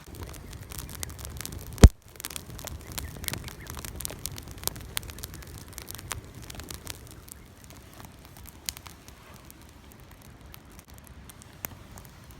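Wood fire crackling and popping in a fire pit, with scattered sharp pops over a low rumble. One loud sharp knock comes just under two seconds in.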